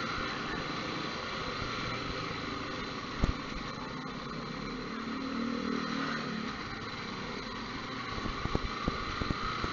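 Motorcycle riding along a narrow concrete road: steady engine and road noise, with a sharp knock about three seconds in and a few clicks near the end.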